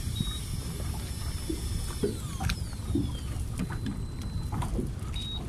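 Baitcasting fishing reel being cranked, its gears and pawl clicking and whirring as the line is wound in, over a steady low rumble of wind and water against the boat. A short high beep sounds near the start and again near the end.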